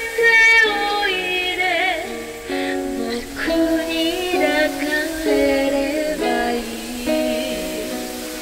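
Live music: a female voice sings a wavering, held melody into a microphone, then plucked string notes step through a tune from a few seconds in.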